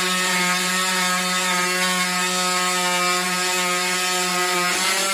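Oscillating multi-tool with a thin cutting blade running steadily as it cuts a slot along a length of pipe, a loud even buzz that wavers briefly in pitch near the end.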